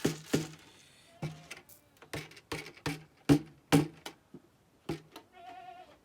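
A series of sharp knocks, irregular at about two a second, each with a short hollow ring, and a brief animal call near the end.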